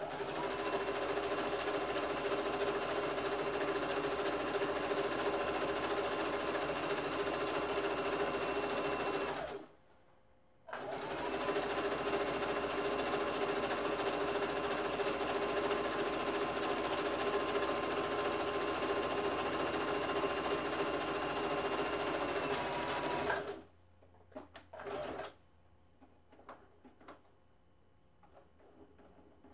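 Electric sewing machine stitching through fabric at a steady speed, its motor whine rising as it starts. It stops for about a second, runs again for about thirteen seconds and stops. A few light clicks of the machine and fabric being handled follow.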